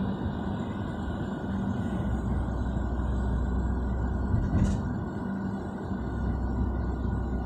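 Road and engine noise heard from inside a moving vehicle: a steady rumble with a faint hum, and one short knock about four and a half seconds in.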